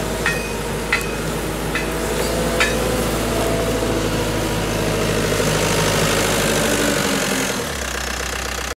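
Caterpillar 906H compact wheel loader's diesel engine running steadily, with four sharp, ringing metallic clinks in the first three seconds. Near the end the engine note drops as the revs fall.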